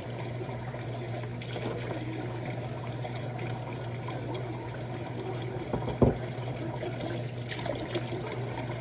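Steady trickling water sound with a low hum beneath it, and a single knock about six seconds in.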